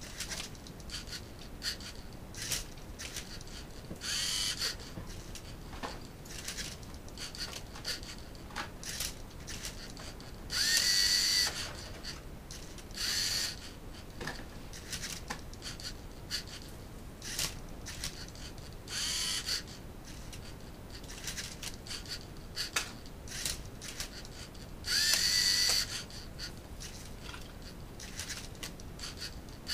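LEGO Mindstorms NXT robot's electric motors whirring in short spurts as it tilts and turns a Rubik's cube, mixed with plastic clicks and clacks from the cube and the LEGO parts. A few longer, louder whirs stand out, the loudest about eleven seconds in and again near the end.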